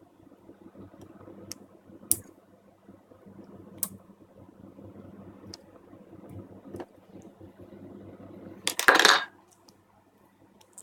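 Tweezers clicking and tapping against a circuit board and its solder joints during desoldering, scattered small metallic ticks over the steady hum of a small fan. A short, loud rushing sound about nine seconds in.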